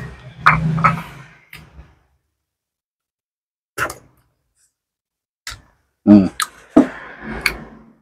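Eating sounds at the table: a metal spoon clicking against a glass bowl and chewing, in short separate clicks and bursts with a silent gap in the middle. A brief hum from the eater about six seconds in.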